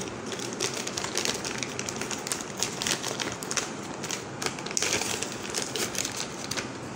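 Clear plastic bag crinkling in quick, irregular crackles as hands squeeze and open it.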